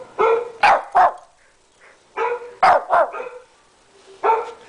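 Shih Tzu barking: three quick barks, a pause of about a second, three more, then one last bark near the end.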